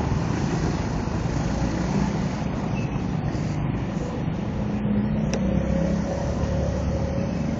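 A steady low mechanical rumble, with a faint held tone in the second half and one sharp click about five seconds in.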